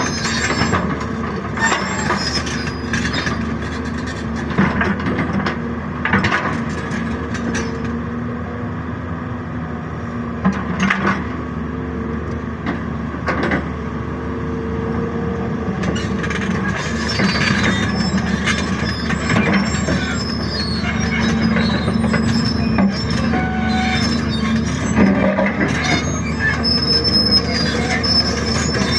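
Excavator at work: its engine and hydraulics running steadily, with repeated metal clanks and high-pitched squealing of steel parts such as tracks or bucket pins, the squeal strongest in the second half.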